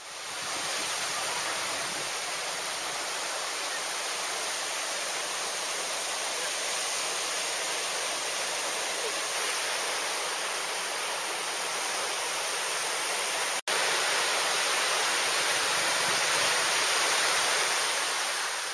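Ocean surf: a steady rushing wash of small waves breaking near the shore. It cuts out for an instant about two-thirds of the way through.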